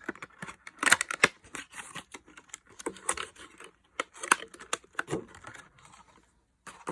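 Product packaging being handled and opened by hand: irregular crinkling, tearing and clicking, with a short quiet gap near the end.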